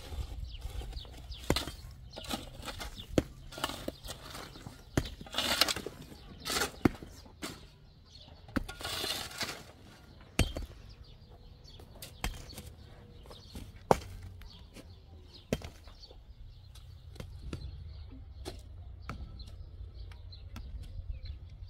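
A mattock striking hard, stony soil and rubble again and again at an uneven pace, each blow a sharp knock. Between blows come longer scraping, crumbling passes as loosened dirt and stones are dragged and tumble.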